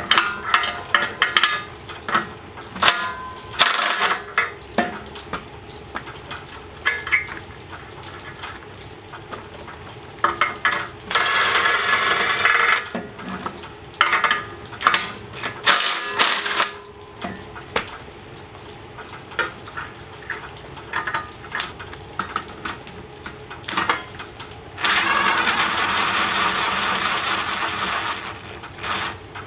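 Steel tools clinking and clicking on the bolts of a steel tractor brush guard as they are loosened. Twice, about a third of the way in and again near the end, a cordless ratchet runs for a couple of seconds.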